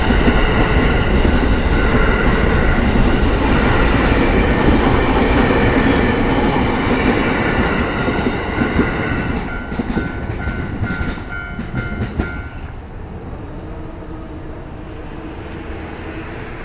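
A train passing over a Japanese level crossing, wheels clacking over the rails, its noise fading away over the first nine seconds or so. The crossing's warning bell then rings clearly about twice a second for a few seconds and stops.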